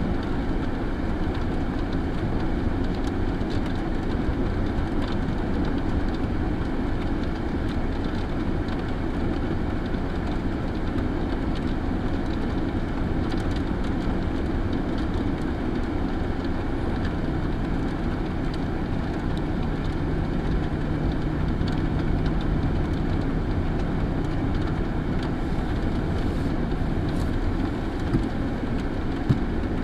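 Steady low rumble and hiss of a vehicle idling with wind outside. A low steady hum comes in for about ten seconds in the second half, and there is one short click near the end.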